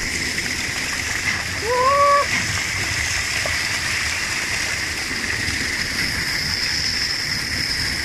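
Fast water rushing steadily down a narrow rock channel and churning around a person sitting in it, a small cascade pouring into a natural stone pool. About two seconds in, a short rising voice-like sound.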